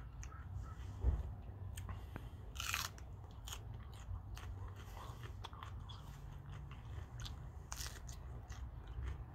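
Crisp bites into a raw orange Scotch bonnet pepper and chewing of it, with small crunchy clicks and a short crackly crunch twice, the second about 8 seconds in. A dull thump about a second in is the loudest sound.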